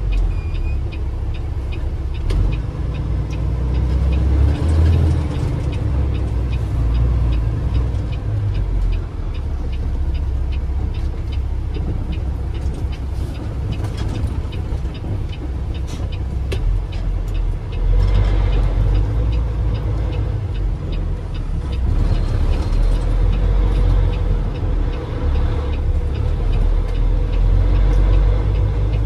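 Semi truck's diesel engine running, heard from inside the cab while driving, swelling louder at times. A turn signal ticks about twice a second through the first half or so.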